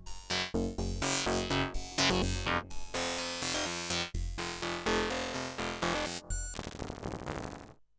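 Arturia MatrixBrute analog synthesizer playing a quick sequenced pattern of short pitched notes over a steady bass. Near the end the notes give way to a held sound that fades out.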